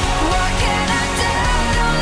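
Background music: a pop-rock song.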